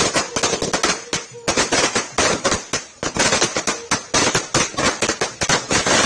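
A string of firecrackers on the road going off in rapid, irregular bangs, many a second, with a brief lull a little over a second in.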